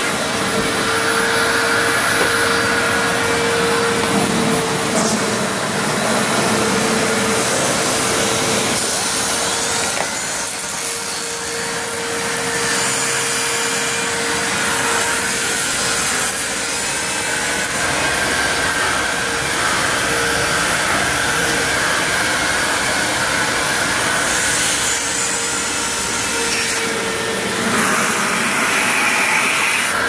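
A Hoover Self Propelled WindTunnel Ultra upright vacuum cleaner running steadily, with a constant motor whine over the rush of airflow. Near the end the whine drops away and the sound changes.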